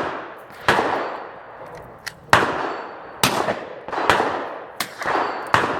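Rifle shots fired one at a time at uneven intervals, each a sharp crack followed by a long echoing decay, with several loud shots in a few seconds.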